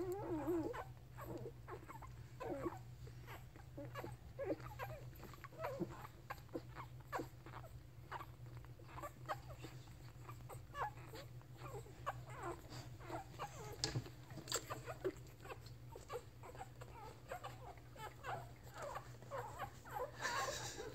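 Newborn puppies nursing on their mother dog: a continual patter of faint squeaks, little whimpers and suckling clicks as they squirm for a teat. There is a brief whine in the first second.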